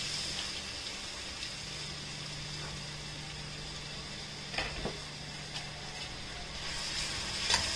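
Chopped onion sizzling gently in hot oil in an aluminium pressure-cooker pan, a steady hiss with a few small pops past the middle and near the end, over a low steady hum.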